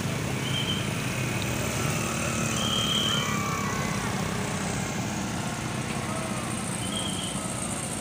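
Traffic climbing a steep hill road: heavy trucks and motorcycles running under load in a steady rumble. Three short high-pitched tones sound above it.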